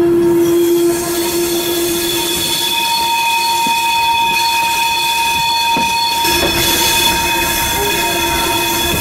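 Steel wheels of the steam tram's carriages squealing against the rails on a curve: several steady squeal tones over the rolling rumble of the train. The squeal changes pitch about six seconds in, as the rumble grows louder.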